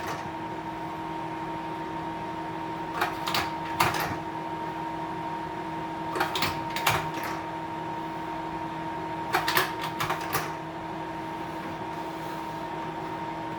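Hanimex La Ronde 500S slide projector running with a steady humming drone from its fan and motor. Its slide-change mechanism clacks three times, about three seconds apart, each change a short cluster of two to four clicks as slides are moved in and out.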